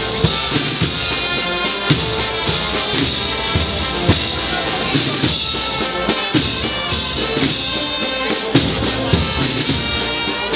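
Brass band with drums playing a march, with sharp drum strokes standing out now and then.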